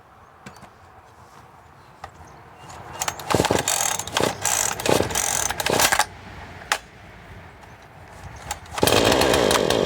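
Husqvarna 440e chainsaw being pull-started cold after months unused, with the choke out and the primer pumped: several hard pulls on the recoil starter cord, then about nine seconds in the two-stroke engine catches and runs loudly.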